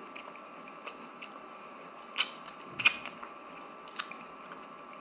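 A person eating with his hands: a few short, sharp chewing smacks and clicks, the two loudest about two and three seconds in, over a steady faint hum.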